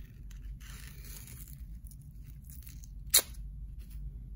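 White athletic tape being pulled off the roll with faint rasping rips, then torn across by hand in one short, sharp tear about three seconds in.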